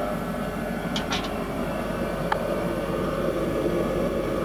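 Portable forced-air space heater running with a steady rushing noise of its fan and burner. A few light ticks about a second in and another a little after two seconds.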